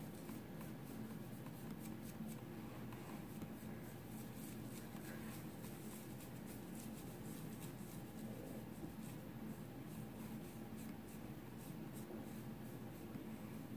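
Faint, irregular scratchy rubbing strokes of fingers blending contour makeup on skin, over a steady low hum.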